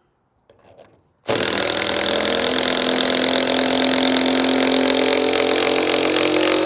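Power drill running steadily for about six seconds, driving a screw, starting abruptly about a second in with a steady pitch throughout.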